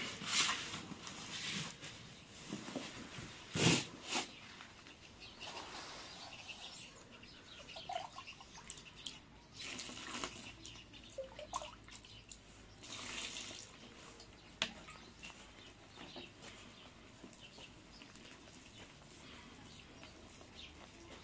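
Water poured from a metal cup into flour in an aluminium pan for bread dough, in several short pours, the loudest about four seconds in. Softer rustling of hands working the flour follows.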